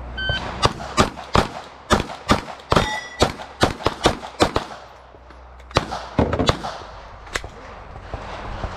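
Rapid pistol fire from Glock handguns: about a dozen sharp shots in quick succession over the first four and a half seconds, then a few more scattered shots after a short pause.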